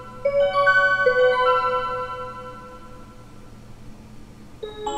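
Seiko Melodies in Motion musical wall clock playing its chime: a short phrase of bell-like notes struck in quick succession about a second in, then left to ring out and fade, with a new phrase starting near the end.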